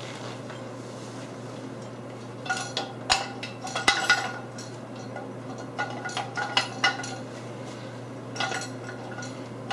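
Square metal rail tubes of an adjustable mobile base being slid into their brackets, clanking and clinking in three bursts of sharp metallic knocks with a brief ring.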